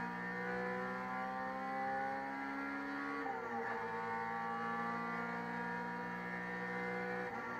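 Race car engine heard from inside the cabin, pulling hard with its pitch climbing steadily through a gear. About three seconds in the pitch drops sharply at an upshift, then climbs again, with another drop near the end.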